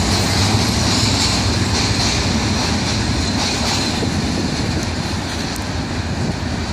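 Freight train of rail tank wagons rolling past on the track, a steady rumble of wheels on rails that fades slightly as the train draws away.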